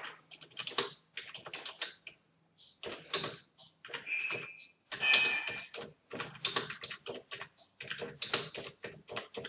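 Typing on a computer keyboard: irregular runs of quick keystroke clicks with short pauses between words. A brief high ringing tone is mixed in about four to five seconds in.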